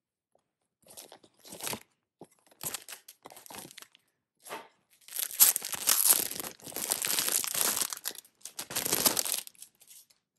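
Clear plastic packaging crinkling and rustling as it is handled and pulled open, in irregular bursts that grow louder and denser over the second half.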